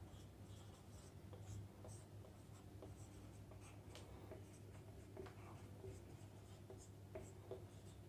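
Marker pen writing on a whiteboard: faint, irregular short strokes and taps of the felt tip on the board.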